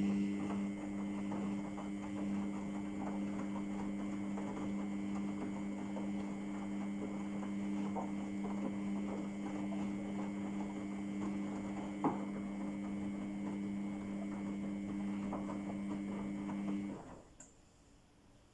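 Samsung washing machine's pump running with a steady hum and a crackling, fizzing water noise, with a single click about twelve seconds in; it cuts off suddenly near the end.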